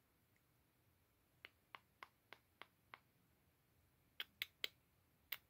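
A run of sharp, light clicks in a quiet room: six evenly spaced, about three a second, then after a pause three louder clicks in quick succession and one more near the end.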